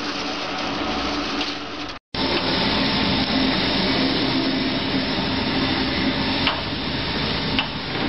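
Electric cable-stripping machines running steadily with a mechanical hum. About two seconds in, the sound cuts to a larger industrial stripper working through heavy armored cable, with two sharp clicks near the end.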